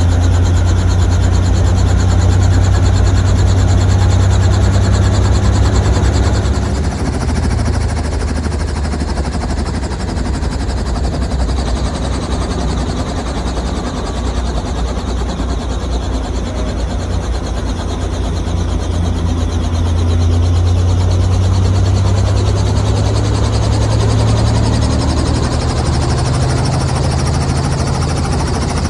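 Robinson R44 Raven I helicopter running on the ground, heard from inside the cabin: its six-cylinder Lycoming piston engine gives a steady low drone with rapid pulsing. The drone eases about seven seconds in and swells again around twenty seconds in.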